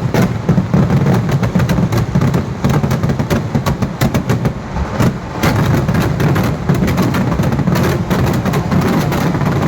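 Large fireworks display: a dense, continuous barrage of firecracker blasts going off in rapid succession over a constant low rumble.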